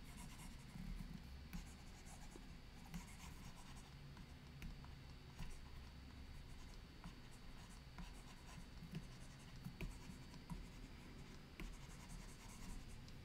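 Faint, irregular taps and scratches of a stylus on a tablet screen as handwritten digital ink is erased, over a low steady hum.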